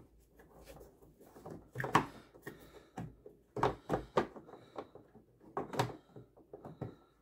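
Plastic clicks, knocks and scraping as the protective dust cap is pushed and worked back onto the back of a car headlight housing, with a handful of short sharp knocks between about two and six seconds in.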